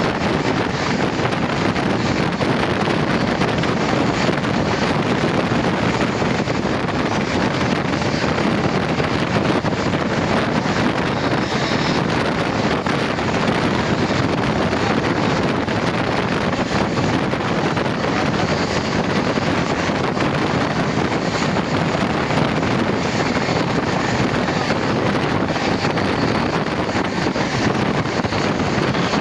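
Steady rushing noise of an express passenger train running at speed, heard from on board, with wind buffeting the microphone.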